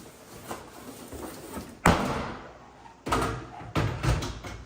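A heavy microwave oven being handled. There is a sharp thump about two seconds in, like it being set down, then shorter knocks and scraping as it is shifted into place.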